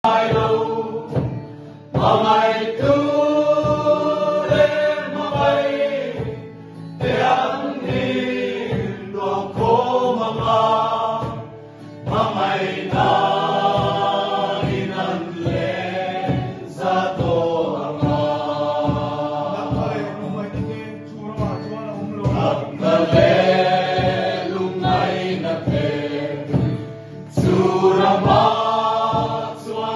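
A group of men and women singing together in Mizo, accompanied by an acoustic guitar and a khuang, the Mizo cylindrical drum, beaten in a steady pulse about twice a second.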